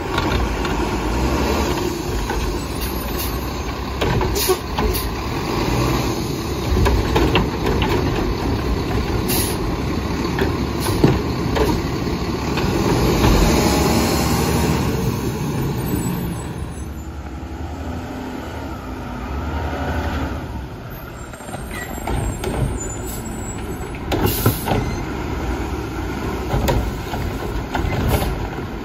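Mack LEU garbage truck with a McNeilus Atlantic front-loader body and Curotto-Can arm: its engine runs loud and revs for the first half, then settles quieter. Short air-brake hisses come through it, a longer one near the end, with clanks as the Curotto-Can arm grabs and lifts a cart.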